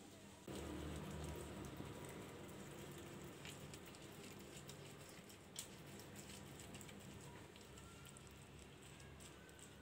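Faint soft patting and rustling of hands tucking and smoothing thin warqa pastry sheets around a pastilla in a metal pan, over a low steady hum, with a couple of light ticks.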